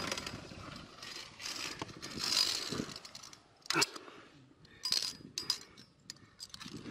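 Via ferrata carabiners and lanyard handled on the steel safety cable: a rasping scrape of metal along the cable, then a few sharp metallic clicks about four and five seconds in.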